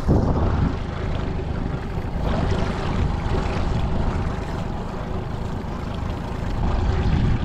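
A small boat's motor running steadily at slow trolling speed, a constant low hum.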